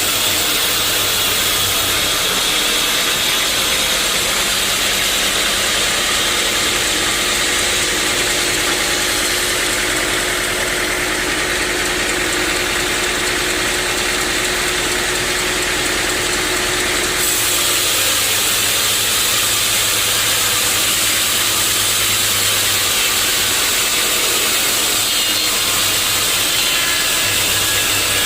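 Sawmill saw machinery running continuously with a steady, even noise. A faint steady tone holds through the middle and stops about seventeen seconds in, where the noise shifts.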